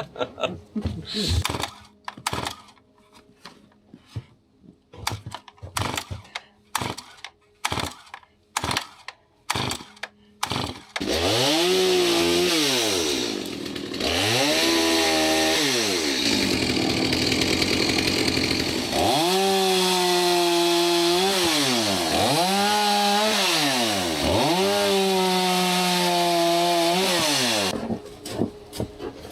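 Stihl two-stroke chainsaw: a series of short, irregular clicks and knocks, then about eleven seconds in the saw runs and revs up and down five times as it cuts branches off a fallen tree, until shortly before the end.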